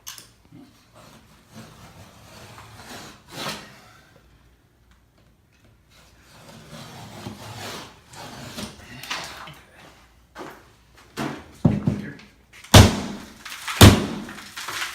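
Demolition of an interior wall: scraping and handling noises, then three heavy blows about a second apart near the end.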